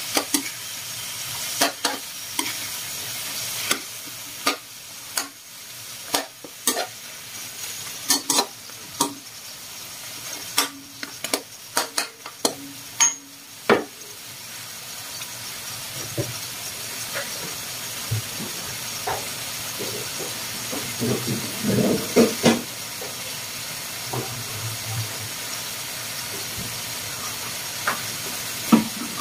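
Chicken and pork pieces sizzling in hot oil in a wok, with a metal utensil knocking and scraping against the pan many times during the first half as the meat is stirred. After that the meat is left to fry with a steady sizzling hiss and only a few scattered knocks.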